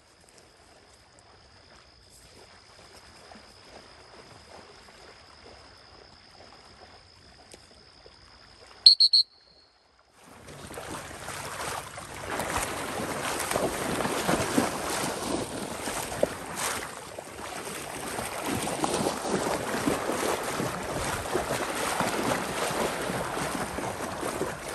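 Wading through shallow marsh floodwater: loud, steady sloshing and splashing from about ten seconds in, as the retriever and the person following him push through the water. Earlier it is faint, broken about nine seconds in by two quick, shrill whistle blasts.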